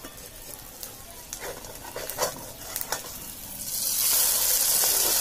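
Fish-roe patty frying in hot oil in a metal wok, crackling faintly, with scrapes and clicks from a metal spatula. About three and a half seconds in the patty is flipped, and the sizzle jumps to a loud, steady hiss.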